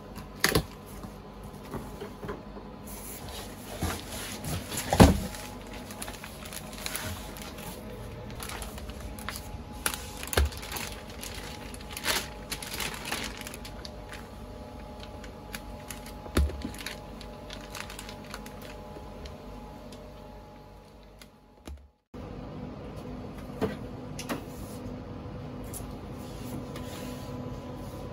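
Unboxing noise: a cardboard box and plastic wrapping being handled, with rustling and scattered clicks and knocks, the loudest a thump about five seconds in. Past the twenty-second mark it gives way to steadier room noise with a low hum.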